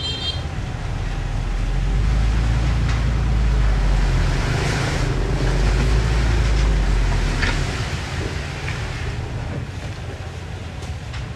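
Heavy earthmoving machine's diesel engine running with a low rumble that swells for several seconds and eases off near the end.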